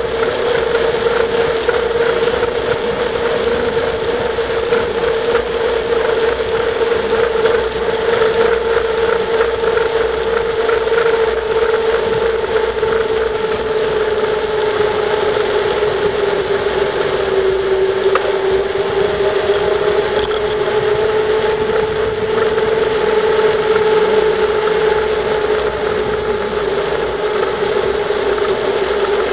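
Bicycle coasting fast down a paved road: steady tyre and wind noise with a whining hum whose pitch dips a little past the middle and comes back up.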